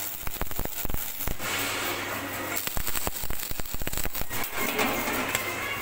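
Electric arc welding on steel plate: the arc crackling and sizzling, with a steady low hum beneath.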